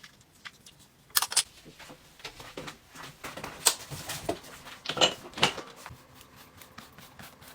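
A string of small clicks, taps and knocks from objects being handled, with the sharpest pair about a second in and two more around five seconds in, over quiet room tone.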